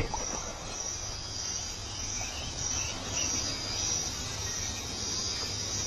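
Night chorus of crickets: a steady high trill that swells in a slow, even pulse, about one and a half times a second.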